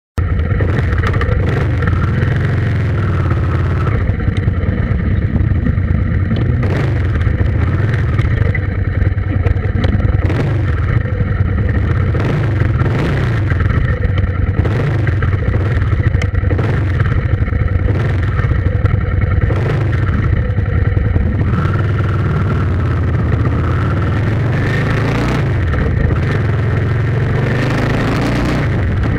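Loud, steady low rumble of a running vehicle, with frequent clattering knocks throughout; it starts abruptly out of silence.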